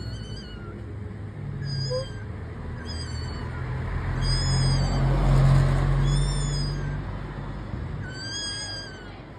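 A short, high-pitched, arched call repeated about every one to two seconds, over a low steady hum that grows louder around the middle and then fades.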